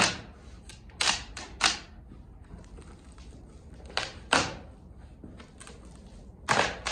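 Cardboard shipping box being torn and pulled open by hand, making sharp tearing and flapping sounds in three quick groups.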